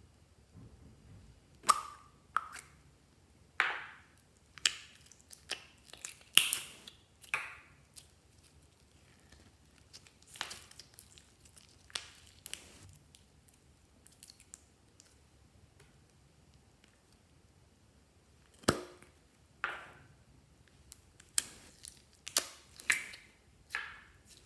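Clear slime being worked by hand, with irregular sharp pops and squelches of trapped air. They come in clusters, with a quieter stretch in the middle.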